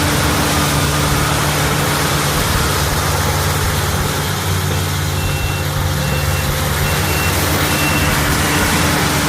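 A heavy vehicle or machine engine running steadily under loud, even mechanical noise. Its reversing alarm beeps several times, about twice a second, past the middle.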